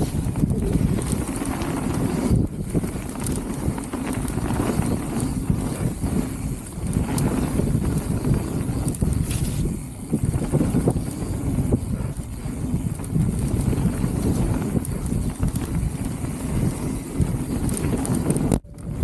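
Wind buffeting the camera microphone over the rumble and rattle of a mountain bike riding down a muddy dirt trail. The sound drops out sharply for a moment near the end.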